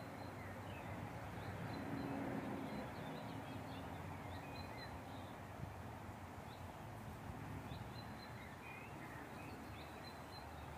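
Small birds chirping and calling: many short, scattered high chirps over a steady, faint outdoor background hum.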